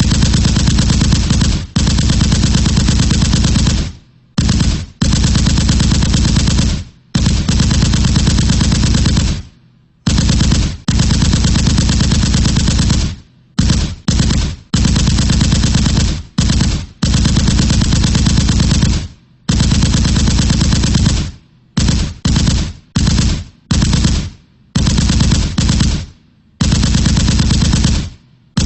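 Machine gun firing on full automatic in a rapid, continuous stream of shots. It comes in long bursts of several seconds with short breaks, and in the second half it changes to quicker, shorter bursts.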